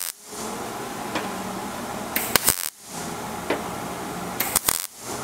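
Millermatic 141 MIG welder laying single tack-weld pulses on thin truck body sheet metal: short bursts of arc noise about half a second long, one just ending at the start and two more about two and a half and four and a half seconds in. The tacks are skip-stitched along the seam to keep heat from warping the panel.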